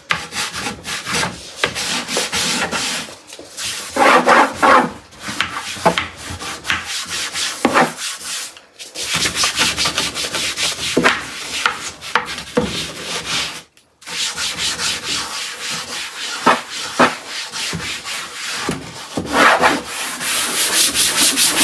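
A scrub sponge scouring the bottom and sides of an artificial-wood kitchen drawer in uneven back-and-forth strokes, with a brief pause about two-thirds through and quicker, steadier strokes near the end.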